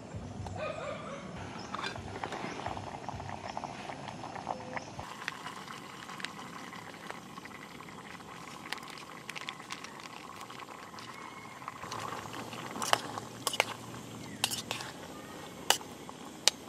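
A pot of stew bubbling on a portable gas canister stove, with the burner's steady hiss. Tomato sauce is poured in, and a metal spoon clinks against the aluminium pot several times near the end as the stew is stirred.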